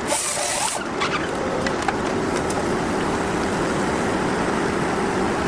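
A heavy engine running steadily under load. A bright hissing noise during the first second cuts off abruptly.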